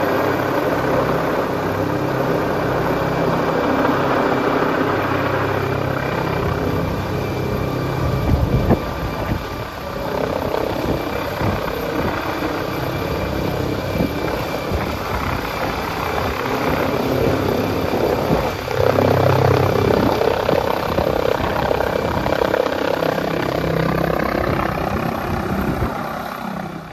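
Rescue helicopter hovering overhead with a long line slung beneath it. Its rotor and engine noise is loud and steady, swells and eases a little, and fades near the end.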